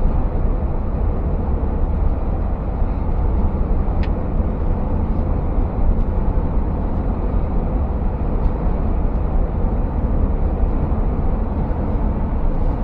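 Steady in-cab running noise of a Scania S650 V8 truck cruising on the motorway: an even engine and road rumble, low and unbroken. There is one faint click about four seconds in.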